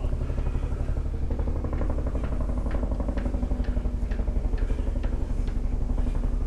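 An engine running steadily at idle, its low beat pulsing rapidly and evenly.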